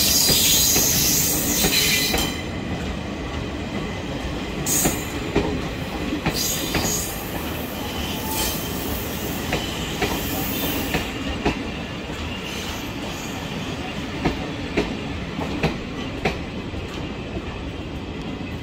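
Old passenger coaches rolling slowly past as the train pulls into the station. The wheels squeal loudly and high for the first two seconds, then in shorter squeals. Near the end the wheels click over rail joints as the last coaches go by.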